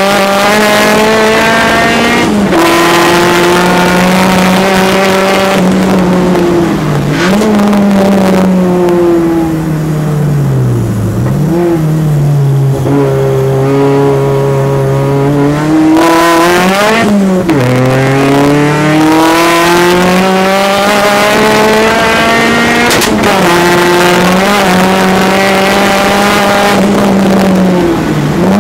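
Peugeot 205 turbo's engine heard from inside the car, driven hard on track: the pitch climbs and drops sharply at each gear change, sinks as the car slows about ten seconds in, then climbs through the gears again.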